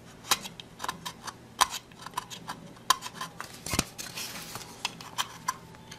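Hobby scalpel blade scraping leftover excess off a hard plastic model-kit part: a run of short, irregular scratches and clicks, with one sharper click a little before four seconds in.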